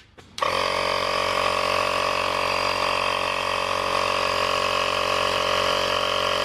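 Air Hawk Pro cordless air compressor running steadily while inflating an off-road vehicle tyre, a constant motor-and-pump drone that starts abruptly about half a second in.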